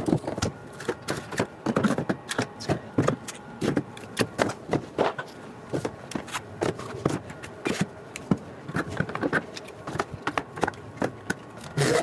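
Plastic 3D-printer filament spools knocking and clattering as they are handled and set one after another onto a wall-mounted spool rack: a string of irregular clicks and knocks.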